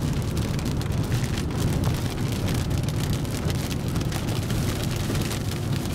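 Rain striking a moving vehicle's windshield and roof as a dense patter of small ticks, over the steady low rumble of the vehicle driving.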